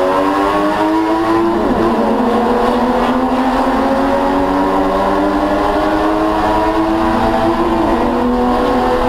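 Spec Boxster's Porsche flat-six engine at full throttle, heard from inside the cockpit, its pitch climbing steadily as the car accelerates. It drops sharply at two upshifts, about a second and a half in and near the end.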